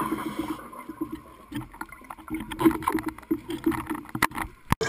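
Underwater sound from a diving camera: scuba regulator bubbles, irregular bubbling and gurgling, with a few sharp clicks near the end.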